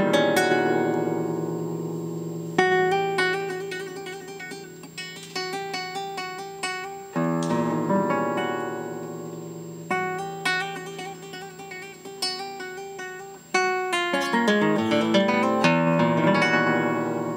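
Classical guitar played solo: full chords struck every few seconds and left to ring and fade, with single plucked notes between them, and a quick run of notes about fourteen seconds in.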